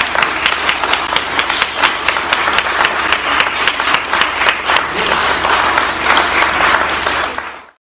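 Audience applauding, many people clapping densely and irregularly, which cuts off suddenly near the end.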